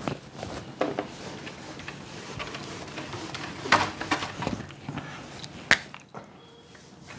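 Cloth wiping a whiteboard clean, a steady rubbing with a few short knocks, and a sharp click near the end.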